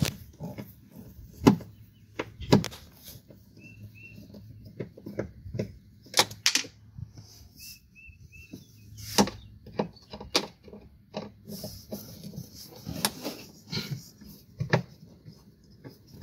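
Scattered clicks and knocks of a hand screwdriver and hands working out the screws that hold the old charging receptacle in a golf cart's plastic body panel. Two brief runs of short high chirps, about four and eight seconds in.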